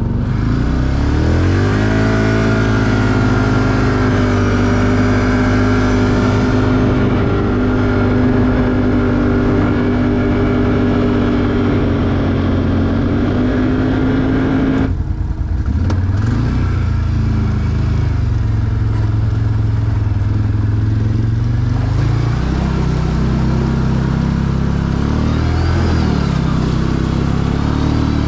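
ATV engine revving up and running hard at steady high revs, easing off briefly about halfway through, then pulling again.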